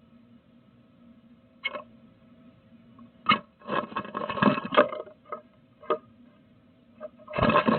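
A bluebird's feet scratching and scrabbling on the wood of a nest box, heard close up from inside the box: a few single sharp scrapes, a busy run of scrabbling around the middle, and another burst near the end.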